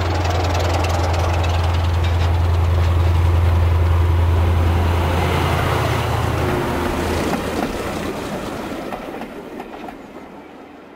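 Model railway train, a diesel locomotive hauling coaches, running past on the track: a steady rolling clatter over a strong low hum. It dies away over the last few seconds as the train moves off.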